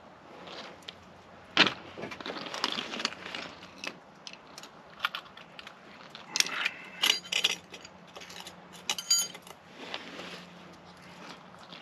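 Small metal parts and hand tools clinking and knocking while being handled, with a run of ringing metallic clinks a little past the middle.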